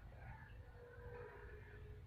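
Near silence: a faint low background rumble.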